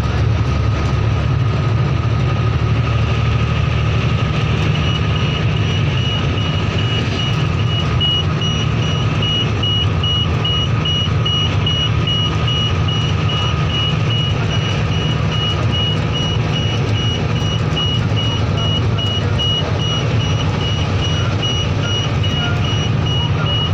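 Bus engine and road noise heard inside the cabin of a moving bus, a steady low rumble. About five seconds in, a high electronic warning beep starts and repeats about twice a second.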